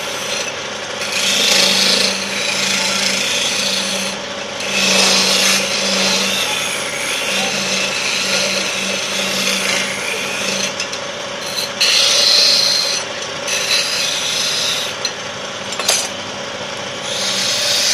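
Wood lathe spinning a wooden spindle while a hand-held turning chisel cuts and scrapes the wood, the rasping rising and falling in several bursts over the lathe's steady hum.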